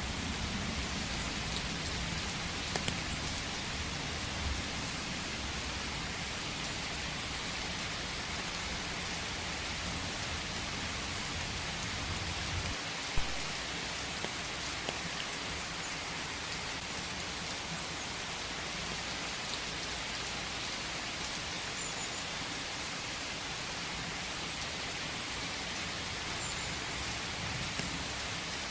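Steady rain falling, an even hiss with scattered sharp drips. A low rumble underneath dies away about halfway through, and one louder tick stands out at that point.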